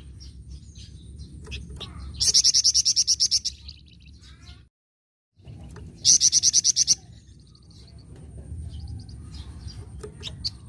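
Flamboyan bird giving its 'nyecret' chatter: two loud bursts, about a second each, of fast repeated high notes at roughly ten a second, with softer chips between them.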